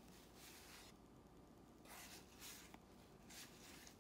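Faint rustling of cardboard trading cards slid off a stack one by one in the hands, a few soft strokes over near silence.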